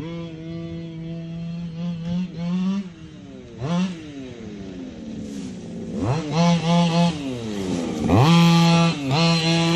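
Losi DBXL's two-stroke gas engine, fitted with a Losi tuned pipe, running and revved in sharp throttle blips. The pitch jumps up and falls back several times, with the revs louder and bigger in the second half.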